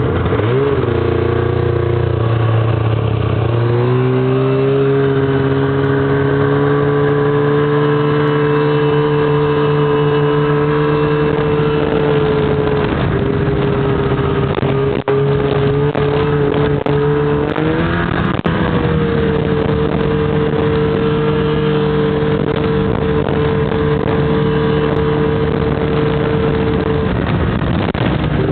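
Snowmobile engine running steadily under way, holding an even pitch, with a brief change in revs a few seconds in and a short rise in revs about two-thirds of the way through.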